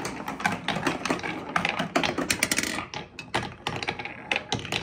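Toy balls rolling and clattering down a marble run of wavy plastic and wooden track, a rapid, irregular run of small clicks and knocks, with a ball dropping into a toy truck's bed.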